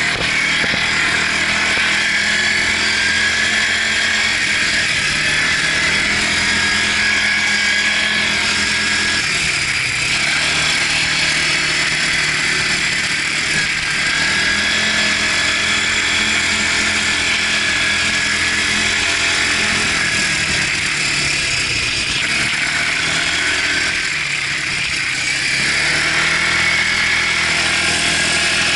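Quad bike (ATV) engine running under throttle, heard close up from a camera mounted on the quad's front. The engine note drops briefly about ten seconds in and again for a few seconds past twenty seconds, then climbs back up.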